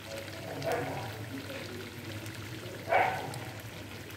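Tomato sauce being squeezed from a plastic bottle into a wok of chicken, over a low steady hum. A single short, sharp sound about three seconds in is the loudest thing heard.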